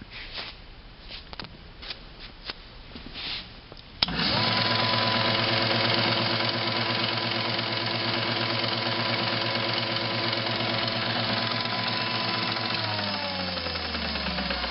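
Iida Mini Forte wood planer switched on with a click about four seconds in, after some light handling clicks. Its motor and cutterhead then run with a steady hum, and near the end it is switched off and winds down with falling pitch.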